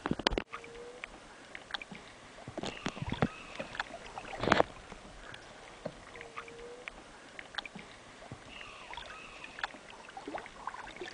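Canoe paddles dipping and pulling through river water, with scattered light knocks and splashes. The loudest comes about four and a half seconds in.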